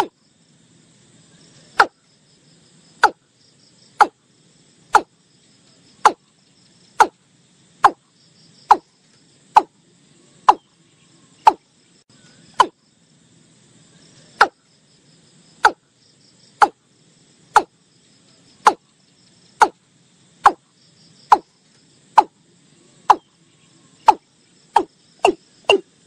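Watercock calling: a long series of short, slightly falling notes, about one a second, with a brief pause midway, coming faster near the end. Faint insects chirring behind.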